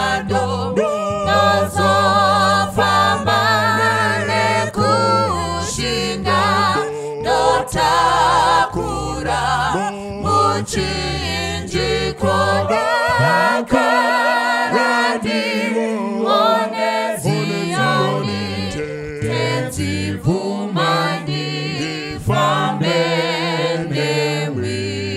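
Choir singing a Shona hymn in unison, the voices held with vibrato over steady low notes; the low notes drop out for a few seconds about halfway through.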